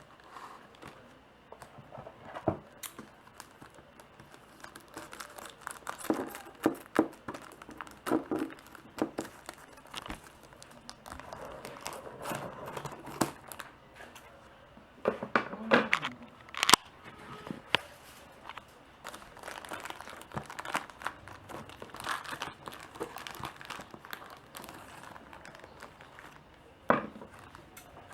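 Packaging being opened by hand: irregular crinkling and tearing of wrapping, with sharp clicks and snaps as it is handled, the loudest around the middle and once near the end.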